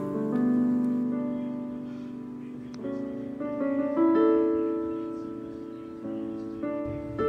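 Soft background piano music, slow chords that are struck and left to ring and fade.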